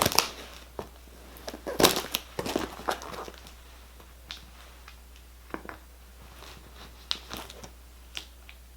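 Cardboard box and its packaging being handled and pried open by hand: irregular crinkles, scrapes and clicks, busiest in the first three seconds and then sparse.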